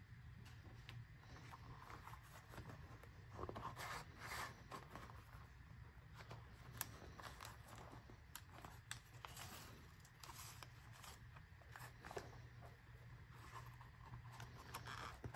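Faint rustling, rubbing and soft clicks at irregular moments as a bison-leather wallet is handled: a plastic card insert slid, the wallet opened and its card and bill pockets flexed. A low steady hum lies underneath.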